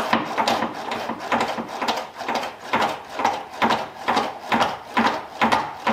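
Brake pedal pumped quickly during brake bleeding, making an even series of noisy strokes about two a second.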